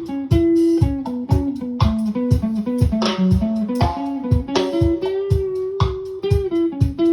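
Guitar playing a single-note melody over a steady low beat of about two strokes a second, with bass underneath.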